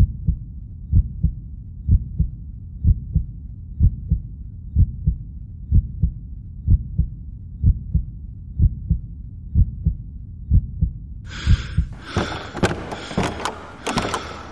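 Slow heartbeat sound effect: low double thumps, lub-dub, about once a second. About eleven seconds in, a hissing noise with sharp clicks comes in over it.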